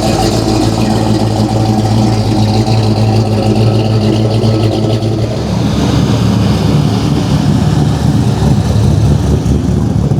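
Car engine running at idle, a steady low drone whose pitch pattern shifts about five seconds in.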